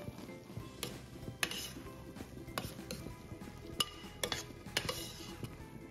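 Metal spoon stirring thick risotto in a pot, scraping the bottom and clinking against the rim in short irregular strokes, with soft background music underneath.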